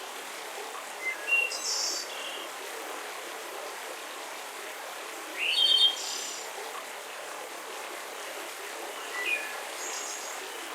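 Songbirds chirping in a forest: three short bursts of high calls, about a second in, the loudest around the middle with a quick rising note, and a softer one near the end, over a steady background hiss.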